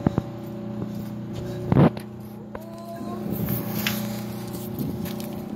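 Steady mechanical hum of an idling machine with several fixed pitches. A loud short knock comes about two seconds in, and a brief rising squeak follows about a second later.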